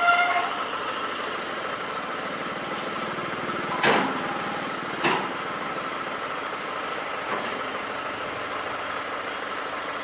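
An engine idling steadily, with two sharp metal clanks about four and five seconds in as steel loading ramps are lifted off a truck bed.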